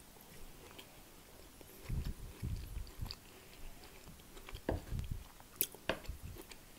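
Close-miked chewing and mouth sounds of a person eating a roast dinner, coming in a few soft bursts, with a couple of sharp clicks near the end.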